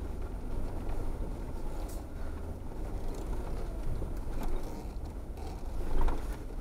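Off-road vehicle driving slowly over a rough dirt trail: a steady low engine and road rumble with a few short knocks and rattles, the loudest about six seconds in.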